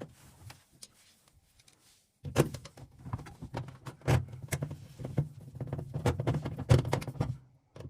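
Screws being driven in to fix a replacement door lock to a washing machine's front panel: after about two seconds of quiet, a busy run of irregular clicks, scrapes and rattles over a low hum that stops just before the end.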